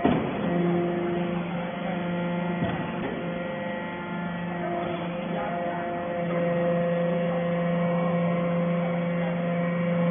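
Hydraulic power unit of a metal-chip briquetting press running with a steady electric hum that swells and eases a little. A sharp knock comes at the start and a fainter one near three seconds in.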